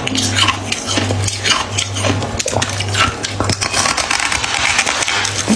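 Freezer frost being bitten and chewed close to the microphone: a dense, continuous run of crisp crunching.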